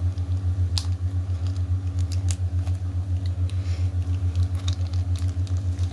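A steady low hum with a regular throb, about four pulses a second, the loudest sound throughout. Scattered light clicks and rustles of a small object being handled sit over it.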